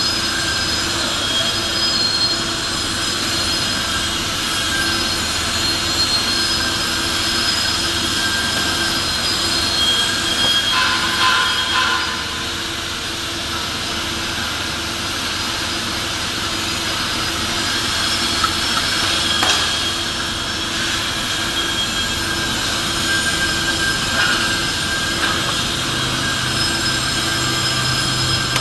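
Steady industrial machinery noise of a fabrication workshop: a continuous hum with several steady whines running throughout, and a deeper hum setting in near the end.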